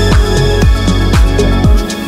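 Electronic background music with a steady kick drum, about two beats a second.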